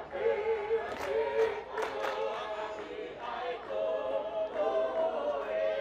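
Tongan lakalaka: a large choir of dancers singing together in held, sustained notes. A few short sharp sounds cut through about one to two seconds in.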